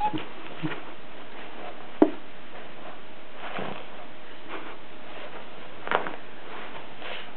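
Two puppies, a miniature pinscher and a Cairn terrier mix, scuffling and playing in a blanket, with a few brief sharp sounds over a steady hiss.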